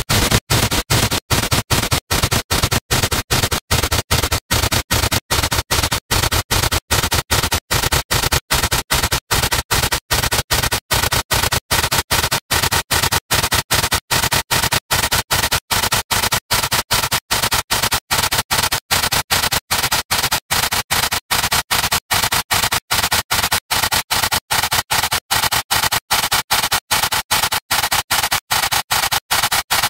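Soundtrack of a video re-exported over ten thousand times, worn down into harsh, distorted hiss-like noise with no clear tune left. Short dropouts chop it about two to three times a second, and the bass thins out in the second half.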